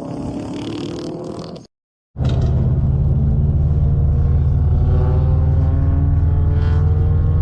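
Car engine and exhaust pulling under acceleration, the note rising in pitch. A cut about two seconds in leaves a brief dead gap, then a loud, steady engine drone climbs slowly in pitch.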